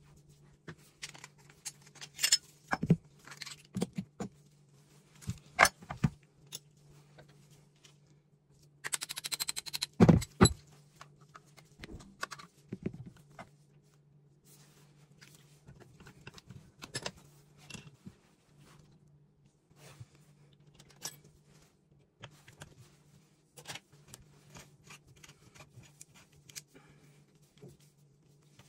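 Small metal parts of a Beretta semi-automatic shotgun clicking, clinking and knocking as it is taken apart by hand and the pieces are set down on a steel-topped workbench, with a longer jangling rattle about nine seconds in. A faint steady low hum underneath.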